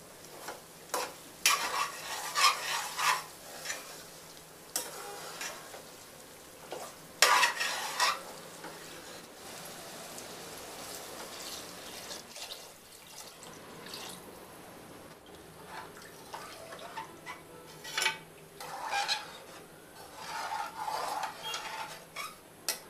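A metal slotted spoon stirs mutton curry in an aluminium pressure cooker, scraping and clinking against the pot in bursts. Around the middle, water is poured into the pot in a steady stream, and then the stirring and clinking start again.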